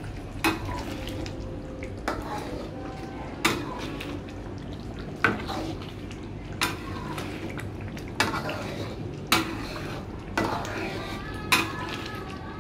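Metal spatula knocking and scraping against a steel wok while stirring thick chili paste (sambal tumis): about nine sharp clanks, roughly one every second and a half, some leaving a brief metallic ring.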